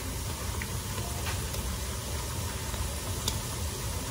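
Tortilla wedges deep-frying in hot avocado oil in a skillet: a steady sizzle with a few light pops.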